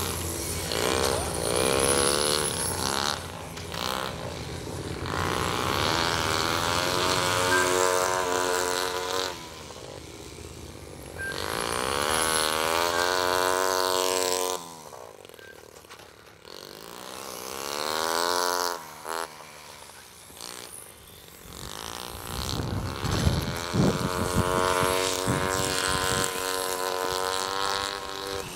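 Nitro RC motorbike's small glow engine, an O.S. .20 aero engine, buzzing as it laps the track. It revs up and down through the corners and straights, with several loud passes and quieter gaps between them. The pitch drops as it goes by.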